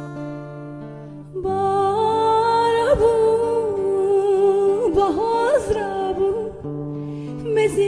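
Sad Kurdish song. Sustained instrumental accompaniment gives way, about a second and a half in, to a solo voice singing a long ornamented line. The voice drops out briefly and comes back in near the end.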